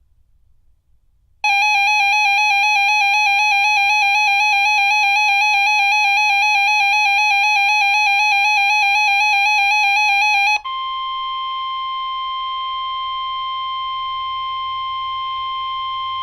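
Weather radio alert: a loud, rapidly warbling electronic alarm tone sounds for about nine seconds, then switches abruptly to the steady 1050 Hz NOAA Weather Radio warning tone that precedes a broadcast watch message.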